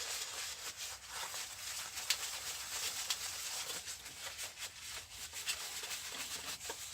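Steady patter of heavy rain on a workshop roof, with soft rubbing and small knocks as a cloth wipes water off a wet plastic monitor case.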